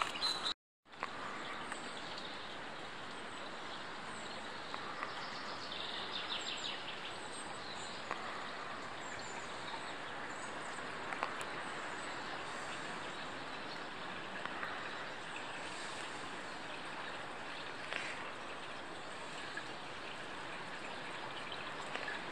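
Small stream running steadily, with a few bird chirps here and there.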